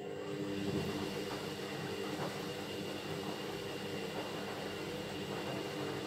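Synix 7kg front-loading washing machine in its wash cycle, its motor whirring steadily as it turns the drum of laundry.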